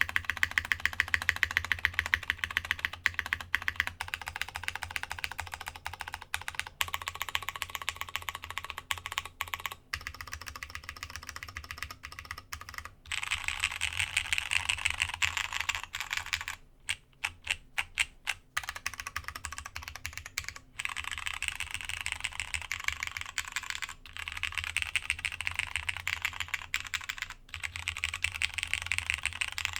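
Typing on a Masjewerke K-III custom mechanical keyboard with plateless Cherry MX Brown switches, DCS keycaps and a brass internal weight: fast, steady keystrokes, slowing to a string of single, spaced key presses about 17 seconds in.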